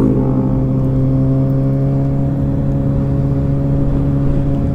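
Motorcycle engine idling steadily, holding one even pitch.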